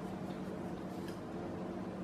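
Steady low hum of room tone, with a few faint light scratches of a colored pencil shading on drawing paper.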